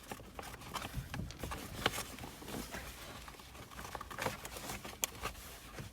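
Lower plastic steering column cover being worked loose by hand: scattered light clicks and knocks of plastic trim.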